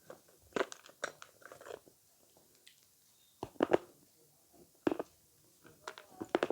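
Avocado being bitten and chewed close to the microphone, in irregular short crunches with quiet gaps between them.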